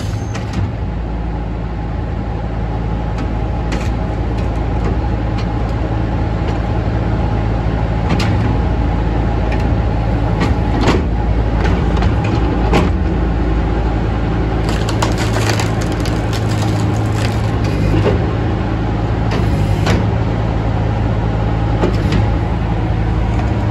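Halverson HWP120 firewood processor running steadily with its engine and hydraulics under power, with scattered sharp knocks and cracks over the hum.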